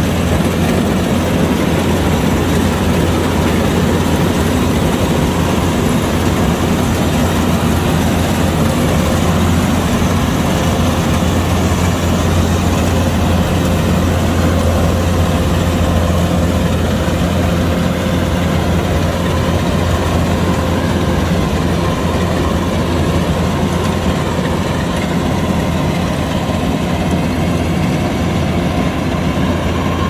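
Kubota combine harvester's diesel engine running steadily, with a constant low hum and a steady machine whine over it.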